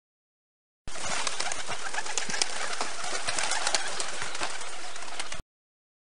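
Pigeon sounds: a dense, noisy stretch with many sharp clicks, starting abruptly about a second in and cutting off abruptly after about four and a half seconds.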